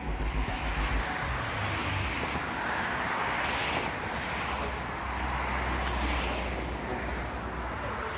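Passing road traffic: a steady rush that swells and fades every couple of seconds.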